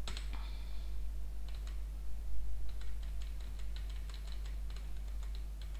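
Computer keyboard keys tapping in short, irregular clicks, over a steady low hum.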